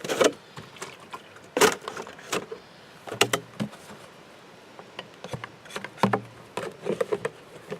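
A series of irregular short crunches and knocks: footsteps through snow and the handling of sap buckets.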